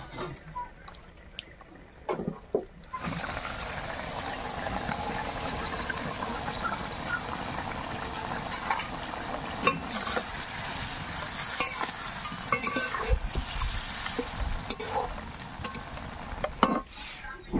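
Fish and cauliflower curry sizzling and bubbling in a metal kadai, steady from about three seconds in. A metal ladle stirs it, knocking against the pan a few times.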